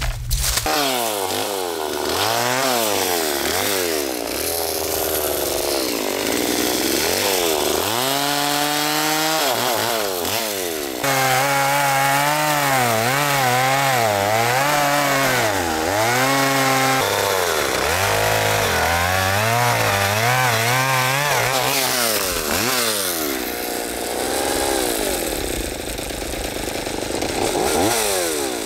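Two-stroke gas chainsaw cutting a fallen black walnut log. Its engine pitch rises and falls as the throttle is worked through a series of cuts, with a longer stretch at high revs about halfway through. It is an EPA saw with a non-adjustable carburetor that runs poorly at low speed and stalls if the throttle is let off, so it is kept on a little gas.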